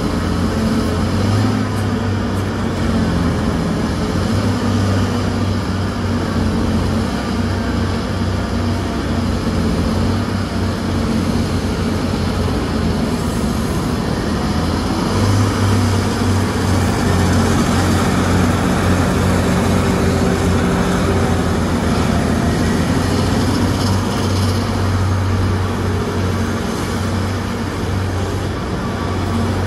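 Terex RH170 hydraulic front shovel running under load as it digs, a loud steady heavy-machine drone whose deep hum swells and eases as the bucket works the face.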